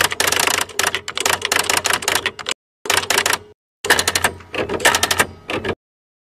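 Typewriter typing sound effect: rapid runs of key clicks, broken twice by short dead-silent gaps and stopping shortly before the end.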